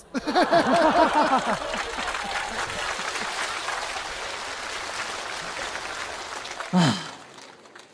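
Studio audience laughing for about a second and a half, then applauding; the applause slowly fades.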